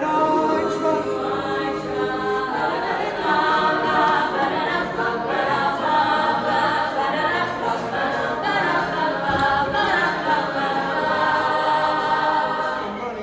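Choir of voices singing a cappella in harmony, holding chords that change about every second.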